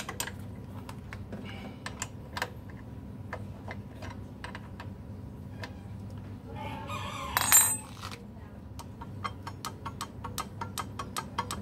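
Small metallic clicks and clinks of hand tools at work on the front brake of a Yamaha N-MAX scooter, with a louder ringing clatter about seven seconds in. After that comes a fast, even run of clicks, about five a second.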